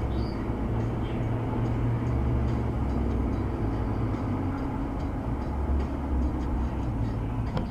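Steady low rumble of a car cruising on a highway, road and engine noise heard from inside the cabin.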